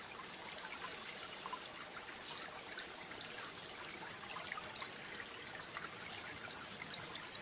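Running water trickling and babbling steadily, like a small stream.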